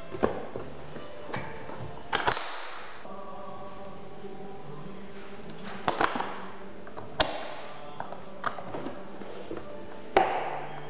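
Zero Halliburton aluminium laptop briefcase being shut and opened by hand. There is a knock as the lid closes about two seconds in, then single sharp metal clicks from the latches in the middle, and a louder clack near the end as the case is opened again.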